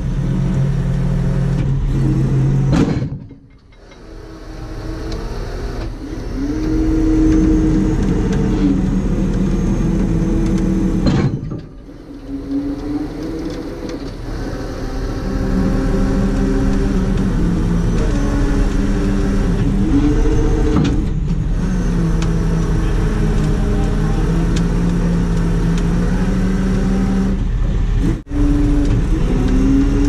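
Heavy truck diesel engine held at high revs while working under load, its pitch rising and falling as the throttle changes, with the sound dipping away sharply three times.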